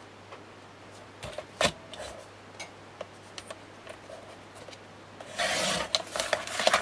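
Fiskars sliding paper trimmer cutting a sheet of paper: a few light clicks and knocks as the sheet is lined up and the guide arm is set down, then about five seconds in a short rasping slice under a second long as the cutting head runs along the rail, followed by a few clicks.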